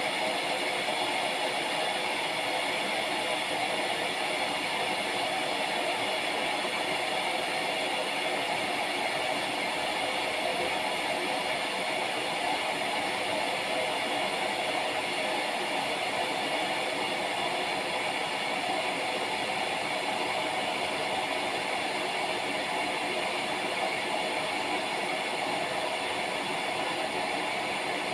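Scarlett SC-EK27G12 electric kettle heating water: a steady, even noise of water being brought toward the boil, holding unchanged throughout.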